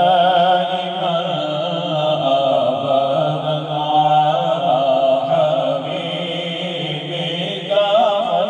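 A man's solo voice chanting a melodic Islamic devotional recitation into a microphone. He draws each phrase out in long, wavering held notes, with a fresh phrase starting near the end.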